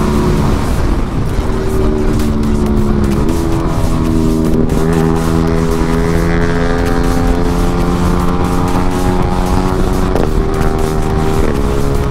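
Motorcycle engine running at steady revs on the move, its pitch stepping down a few times as gears change, over a low wind rumble.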